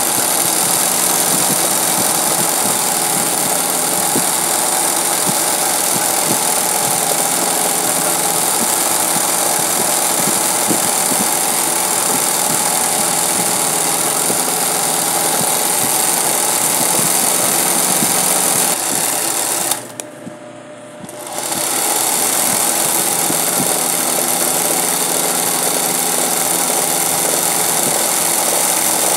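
20U industrial zig-zag sewing machine running steadily, stitching hand-guided embroidery into hooped fabric. It stops for about two seconds about two-thirds of the way through, then starts running again.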